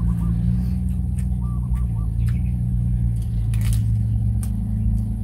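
A steady low motor hum runs underneath a few sharp clicks and crunches of people eating crispy rice pancake wrapped in fresh leaves. A bird chirps faintly at the start and again about two seconds in.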